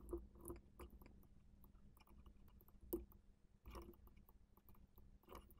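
Near silence with about six faint, irregularly spaced computer mouse clicks, the loudest about three seconds in.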